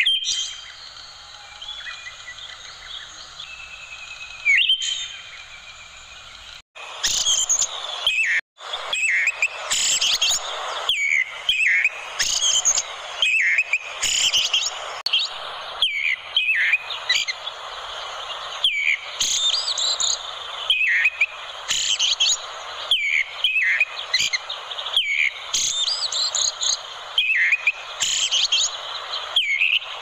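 Eyebrowed thrush (anis kuning) singing, a run of short, high chirped phrases repeated about once or twice a second over a steady hiss. The song is sparse and quieter at first and becomes fuller and louder from about seven seconds in, after two brief dropouts.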